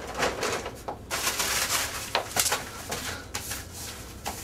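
Paper rustling as a performer handles a paper bag and scattered letters, with a few short knocks as she gets down onto the wooden stage floor.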